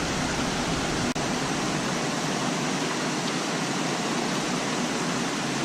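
Steady rain falling: an even, continuous hiss with a very short break about a second in.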